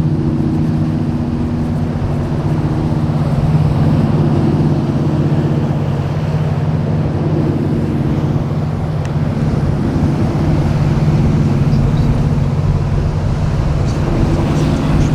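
A boat's engines running steadily, a low, even drone.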